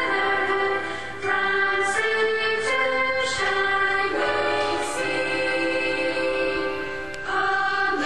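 Background music with singing voices holding long notes that change every second or two.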